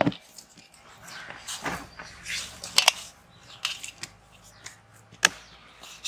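Hands pressing and patting a sheet of dough flat in a large aluminium bowl: soft rubbing and slaps with a few sharp knocks against the metal bowl, the sharpest about five seconds in.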